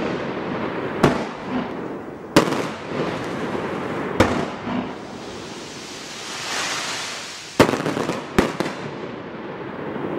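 Gemstone 'Obsessed' 225-shot compound firework cake firing: five loud bangs of bursting shots over continuous crackling, with a hiss swelling about six seconds in as gold tails rise.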